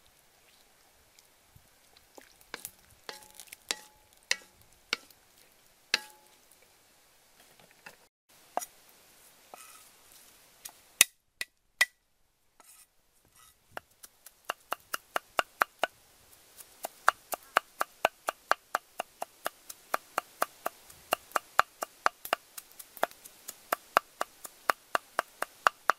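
A knife chopping garlic on a round wooden chopping block: a steady run of quick strikes, about three a second, from about halfway through. Before that come scattered knocks of a wooden spoon stirring in a wok and a few loud cleaver strikes crushing the garlic.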